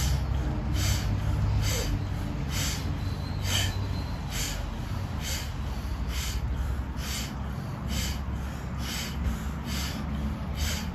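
Rapid, forceful breaths through the nose in an even rhythm, about one sharp rush of air a second, as in a timed kriya breathing round that clears both nostrils. A steady low hum runs underneath.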